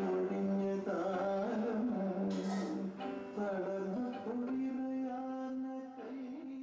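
Background music: a melody over a steady held drone, fading out near the end.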